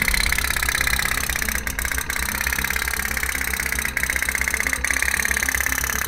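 Tin pop-pop boat running: its small steam boiler putters in a rapid, steady popping as it pushes the boat across the water. A few sharp clicks sound over it.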